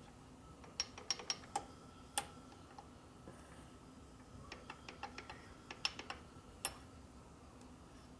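Light metallic clicks and taps in small irregular clusters: a Harley Ironhead Sportster connecting rod rocked back and forth on a rod aligner, knocking against the gauge as its side play is checked for bend and twist.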